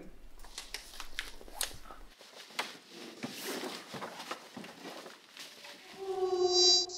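Irregular clicking of a laptop keyboard being typed on. Near the end, a buzzing tone sounds for about a second.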